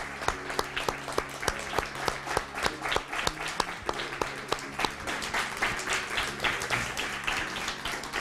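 A small group of people applauding, each hand clap distinct.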